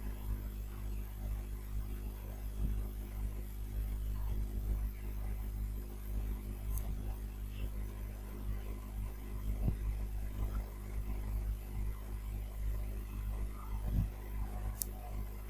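Steady low electrical hum, like mains hum picked up by the recording, with two faint short clicks about seven seconds in and near the end.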